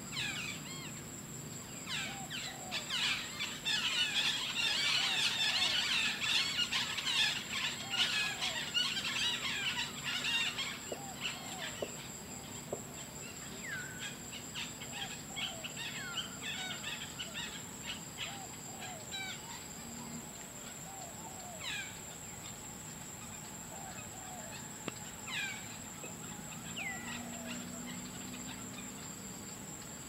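Outdoor insect and bird chorus: a steady high-pitched insect drone, with birds making many short falling chirps, busiest in the first third and sparser after.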